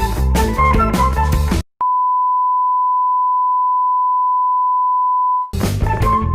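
Background music with guitar and drums cuts off suddenly, and a steady electronic beep, one pure tone held for nearly four seconds, plays in its place before the music comes back in.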